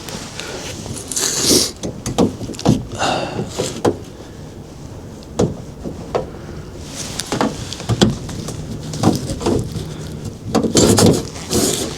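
Scattered handling noises: short knocks, clicks and rustling as a torch and tools are picked up and moved about at a van's cab door.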